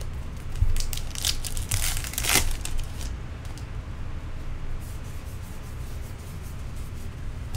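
Trading cards rubbing and flicking against each other as a stack of cards is sorted through by hand. A quick run of short paper scrapes and snaps in the first three seconds gives way to softer rubbing.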